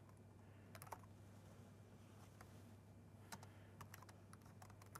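Faint keystrokes on a computer keyboard, a short run of taps about a second in and another run from about three seconds in, over a steady low hum.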